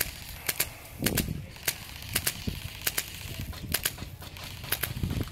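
Airsoft guns firing: sharp, irregular cracks a few times a second, often in quick pairs.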